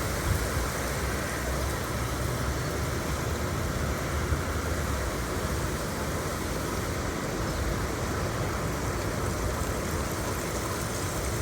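Autumn wind blowing steadily, a continuous rushing noise with a heavy low rumble that swells and eases.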